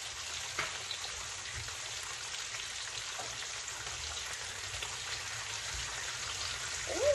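Bacon strips and sausage patties sizzling on a hot electric griddle: a steady crackling hiss.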